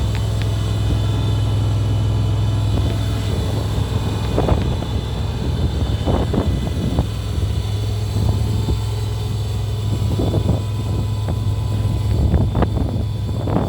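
Mini skid steer loader's engine running with a steady low hum, broken by several brief louder surges.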